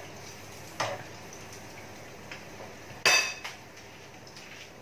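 Kitchenware being handled: a light knock about a second in, then a sharp metallic clink with a brief ring about three seconds in, as of a dish or utensil set down.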